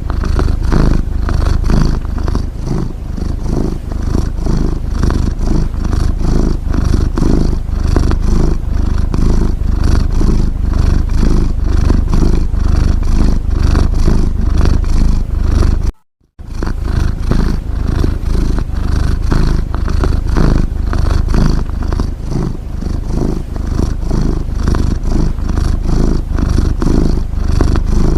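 A cat's continuous rumbling purr, swelling and easing with each breath. It cuts out for a split second about halfway through.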